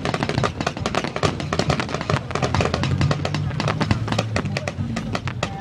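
Fireworks crackling and popping in rapid bursts, many a second, with music playing underneath.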